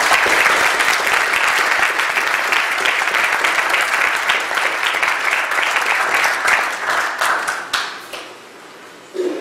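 Audience applauding, many people clapping at once; the applause dies away about eight seconds in.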